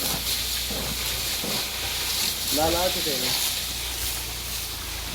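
A steady hiss with a low hum beneath it, and a short wavering voice about two and a half seconds in.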